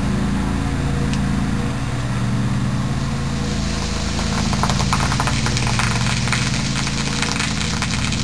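Mentos-and-Diet-Coke geyser from a one-liter bottle: a crackling fizz of soda spraying and spattering comes in about three and a half seconds in and keeps going. Underneath runs a steady motor drone.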